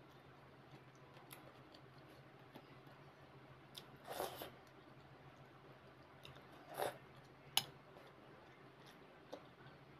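Close-up eating sounds of a spoonful of chickpea curry: two brief wet mouth sounds, about four and seven seconds in, then a sharp clink as the steel spoon is set down in the steel bowl.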